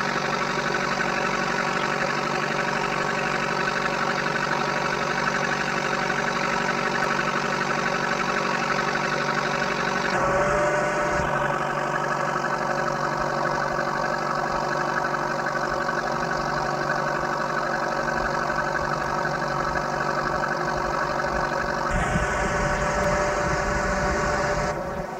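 A fishing boat's engine running steadily at an even pitch, with a slight change in its tone about ten seconds in and again near the end.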